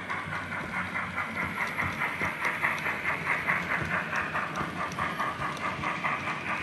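Steam exhaust chuffs from an ESU Loksound V4 sound decoder in a Bachmann OO gauge GWR 45xx Prairie tank locomotive model, beating in a quick, even rhythm as the model runs along the track.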